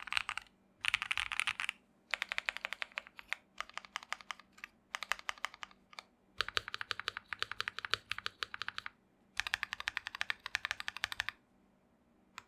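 Typing on a Keychron Q1 mechanical keyboard with Akko Lavender Purple tactile switches on the stock plate: fast runs of keystrokes in several bursts with short pauses between them, stopping about a second before the end.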